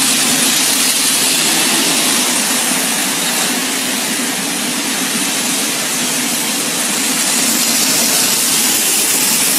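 Steady rushing hiss of rainwater pouring through a large crack in an overpass ramp's concrete slab and splashing onto the pier below, a sign that the ramp's drainage has failed.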